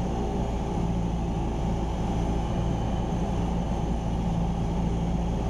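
Cessna 172R Skyhawk's four-cylinder Lycoming engine and propeller droning steadily in flight, heard from inside the cockpit.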